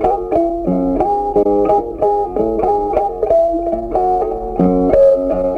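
Background music: a plucked-string guitar melody over a bass line, with notes changing at a steady, quick pace.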